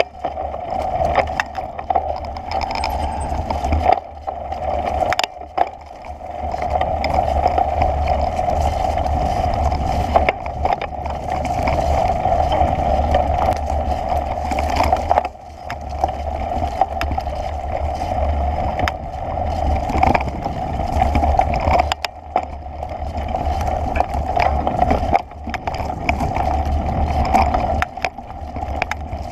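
Steady rolling rumble and hum of a bike ride along a dirt forest trail, picked up by a camera mounted on the bike, with small knocks and rattles. The level dips briefly several times.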